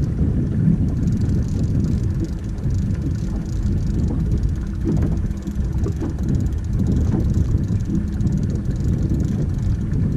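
Steady wind rumble on the microphone, with a few faint clicks.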